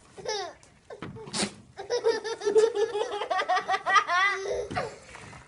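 A goat gives a short sharp snort like a sneeze about a second in. Then comes a long run of high-pitched, rapidly pulsing laughter.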